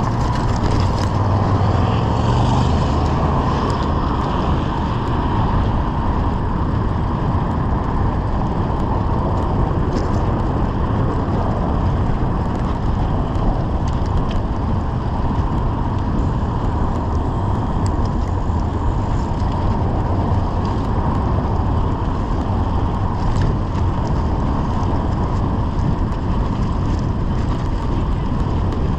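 Steady rush of wind and tyre noise from a folding bicycle rolling along a city cycle lane, with car traffic running on the road alongside.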